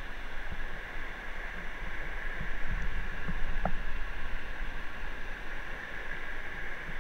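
Steady rushing water at a waterfall, with a few soft knocks.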